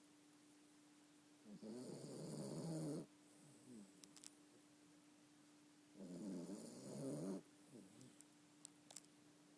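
Yorkshire terrier snoring in its sleep: two snores about four seconds apart, each lasting about a second and a half.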